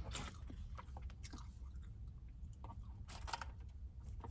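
A person chewing food, with small mouth clicks and a louder noisy moment a little after three seconds in.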